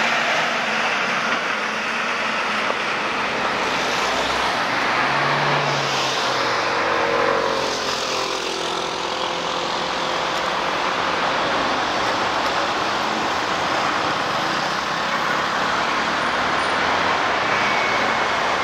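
A MAN TGM fire truck's diesel engine driving past close by, loudest at the start, followed by steady road traffic as cars pass along the street.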